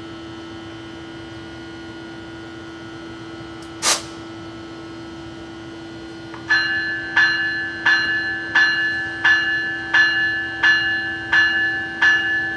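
A warning bell starts ringing about six and a half seconds in, even strikes about one and a half a second, over a steady hum from the standing NJ Transit ALP-45A locomotive. About four seconds in there is one brief, sharp hiss, the loudest sound here.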